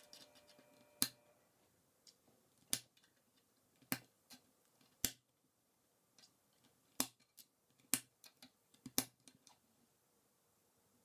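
K'NEX plastic rods and connectors being snapped together by hand: a string of sharp clicks at irregular intervals, roughly one every second.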